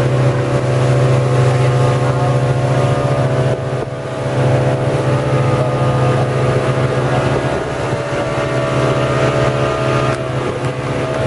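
Dive boat's engine running steadily while under way: a loud, even low drone that dips briefly about four seconds in.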